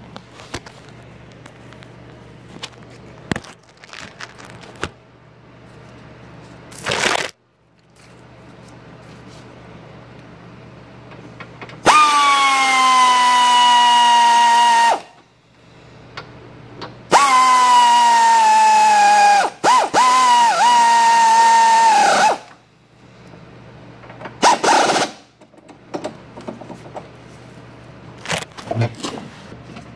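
Cordless electric ratchet tightening radiator mounting bolts: three runs of a motor whine, each two to three seconds long, plus a couple of short blips. The whine dips slightly in pitch just after each start.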